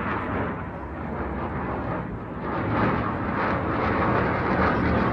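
Jet aircraft passing high overhead: a steady engine noise that grows louder about halfway through.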